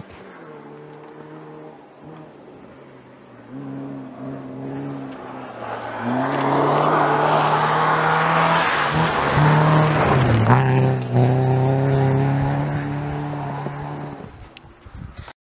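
Rally car engine approaching on a snowy stage, revving hard and getting louder as it nears and passes. The note changes pitch a couple of times around ten seconds in, dipping and rising with the gear changes, then holds steady while the car drives away and fades.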